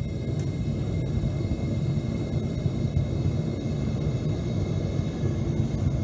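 Homemade propane burner (3/4-inch pipe with a welding-tip injection nozzle) firing into a refractory-lined metal-melting furnace, running with a steady, deep rumble of flame.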